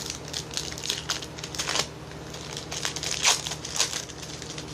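Trading cards being handled and flipped through: a run of dry rustling and crinkling in two bursts, the loudest a little after three seconds.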